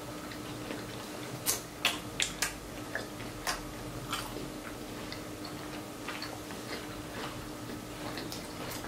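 Close-up eating sounds of crab legs and shrimp: a string of sharp clicks and cracks, most of them between about one and a half and four and a half seconds in, over a faint steady hum.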